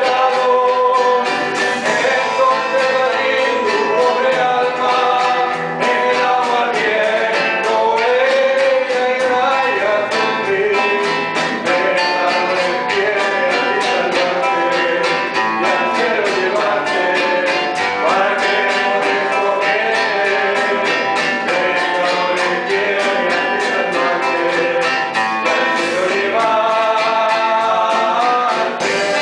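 Live song: male vocals sung into microphones over a strummed acoustic guitar.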